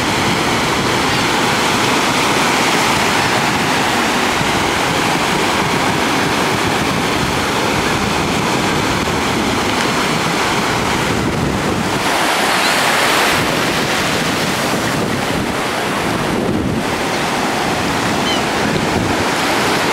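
Surf washing in and out over the shallows at the shoreline, a steady rush of water with wind on the microphone; the wash swells louder for a second or so a little past the middle.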